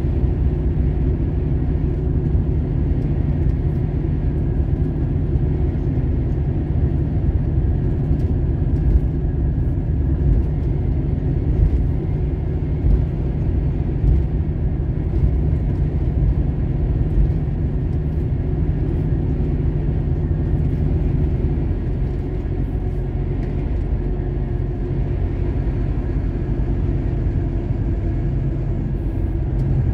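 Truck driving along, heard from inside the cab: its diesel engine runs steadily under tyre and road noise.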